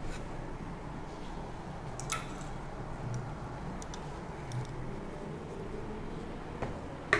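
Quiet handling of clothes on wooden hangers: faint fabric rustle and a few light clicks over low room tone.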